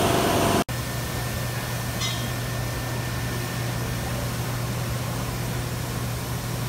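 Steady low mechanical hum with an even hiss over it, and one brief click about two seconds in.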